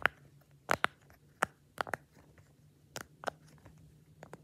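Apple-shaped silicone pop-it fidget toy being popped by fingers: a series of sharp, irregular pops, about nine of them.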